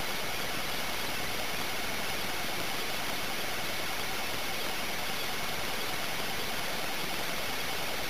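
Steady hiss with a faint, constant high whine and no bird calls: the self-noise of a gum-pack-sized miniature video recorder's built-in microphone.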